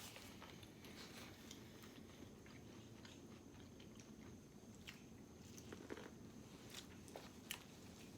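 Faint chewing and biting of food, with soft scattered clicks and crunches that grow a little louder in the second half.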